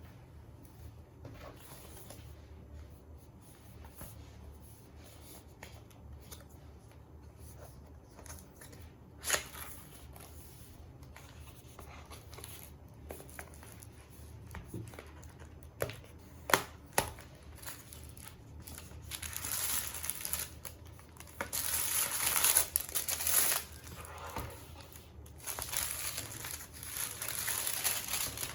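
Crinkling and rustling of something being handled, louder in the second half and in uneven stretches, with a few sharp clicks in the middle over a low steady room hum.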